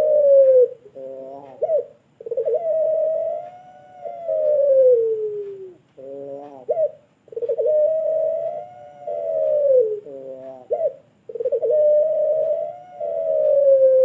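A puter pelung (barbary dove) cooing in its repeated long-voiced pattern. Each long drawn-out coo swells gently and then slides down in pitch for about three seconds, and is followed by a short broken note. The cycle repeats about every four seconds, three times over.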